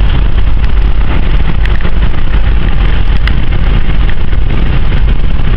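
Steady cabin noise of a 1976 Ford LTD station wagon cruising on the road: the V8 engine's low rumble mixed with tyre and wind noise, heard from inside the car.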